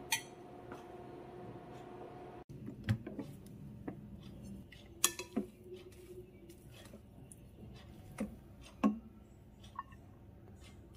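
Kitchen utensils clinking and knocking: a spoon taps a ceramic bowl once over a faint steady hum, then a rice paddle scrapes and knocks against a rice cooker's inner pot as cooked rice is scooped into a steel bowl, with sharper knocks about five and nine seconds in.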